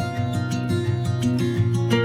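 Background music led by plucked guitar, with sustained notes over a steady beat.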